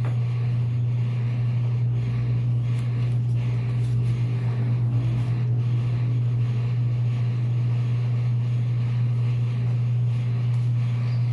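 A steady, loud low electric hum from a running motorised appliance, holding one pitch throughout.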